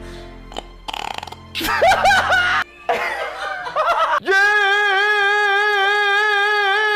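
A man making silly vocal noises: a burp-like croak and warbling, pitch-bending sounds over a low music bed. About four seconds in, the music drops out and he launches into one long held sung note with a slight wobble.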